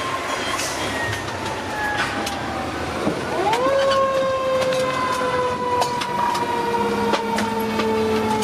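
Fire truck's Federal Q mechanical siren: a falling tone, then about three seconds in a sharp wind-up followed by a long, slow coast-down in pitch. Scattered short clicks and knocks sound over it.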